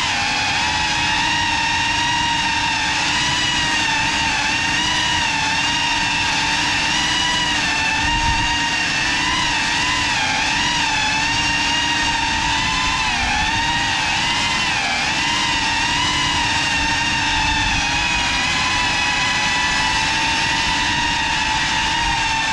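GEPRC Cinelog 35 cinewhoop FPV drone on a 6S battery, its motors and propellers giving a steady high whine whose pitch wavers slightly with small throttle changes during slow, gentle flight.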